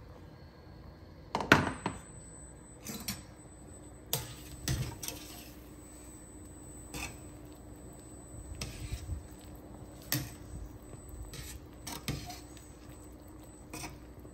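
Kitchen clatter of a pan and utensils being handled: a handful of sharp knocks and clinks, the loudest about one and a half seconds in, over a low steady hum.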